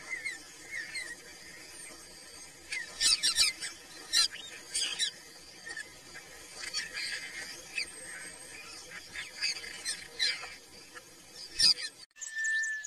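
Tropical forest ambience: many short, high chirping calls and quick trills from wild animals over a low steady hiss. About twelve seconds in the sound cuts abruptly to a held whistle-like tone with gliding calls.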